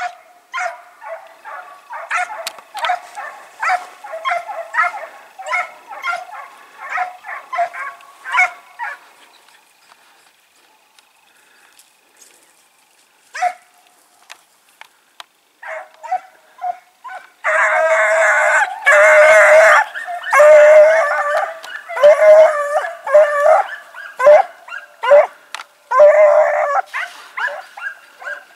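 Hunting hounds baying on a hare's trail. A quick run of yelps, two to three a second, lasts about nine seconds, then a lull with a few single calls. From about seventeen seconds in comes a louder, near-continuous chorus of baying and howling.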